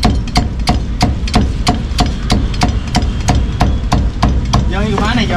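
Meat cleaver chopping roast pork on a thick round wooden chopping block, a steady rhythm of about three chops a second. The chopping stops near the end, when a voice is heard.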